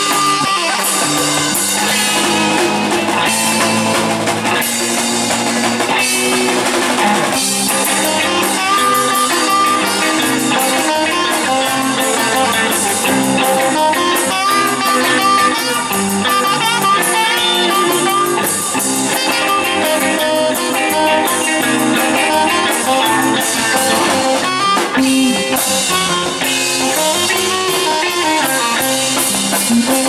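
Live rock band playing: saxophone, electric guitar, electric bass and drum kit, with a steady beat.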